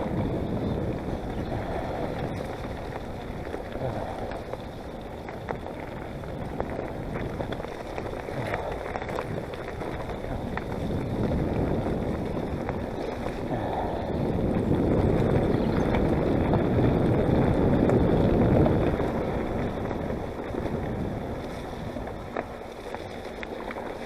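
Wind buffeting the microphone over a steady low rumble from a mountain bike rolling along a trail, swelling louder a little past halfway.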